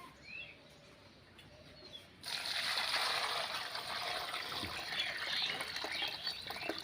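Water poured or splashing in a steady stream, starting suddenly about two seconds in. Before it come a few faint chicken chirps.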